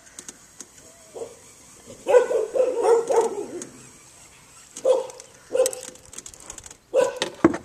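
A dog barking over and over. There is a quick run of barks about two seconds in, single barks around five seconds, and a couple more near the end.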